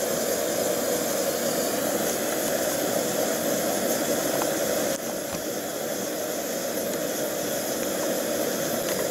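EPIgas APSA-III remote-canister gas stove burner running at full flame with its valve opened all the way: a steady rushing roar of burning gas. It dips slightly about five seconds in.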